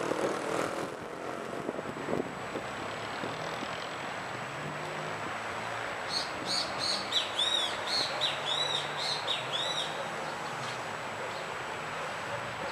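A bird's series of quick, high chirps, about two or three a second, from about six to ten seconds in, over steady outdoor background noise.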